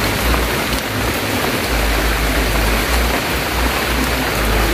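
Rain falling steadily: a loud, even hiss, with an uneven low rumble underneath.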